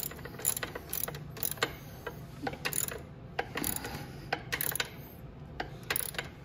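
Socket ratchet wrench clicking in short runs of strokes as a nut is tightened down on the rear shock's lower mounting bolt.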